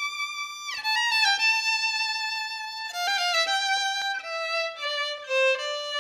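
Solo violin playing a melody one note at a time, with a slide down between notes about a second in.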